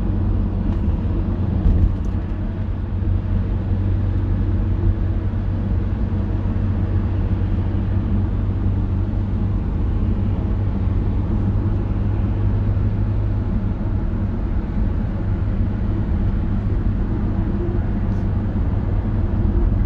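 Steady low rumble of a car on the move, road and engine noise heard inside the cabin.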